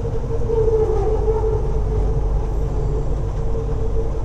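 Kelana Jaya Line light-rail train heard from inside the car: a steady low rumble with a held humming tone over it.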